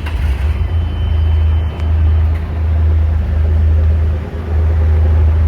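Open UTV driving along off-road: a steady engine and wind rumble buffeting the microphone, with rain starting to fall.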